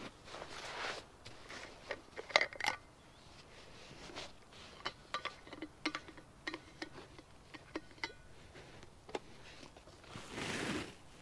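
A scatter of light clicks and knocks, irregular and close to the microphone, the loudest pair about two and a half seconds in, with a brief brushing swish near the end.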